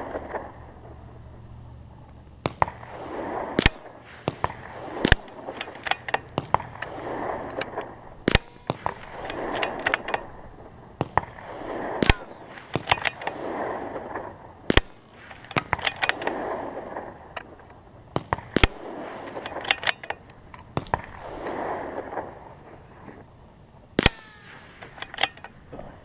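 CZ 455 .22 LR bolt-action rifle firing about seven single shots, each a sharp crack a few seconds apart, at match sticks. Lighter clicks come between the shots as the bolt is worked.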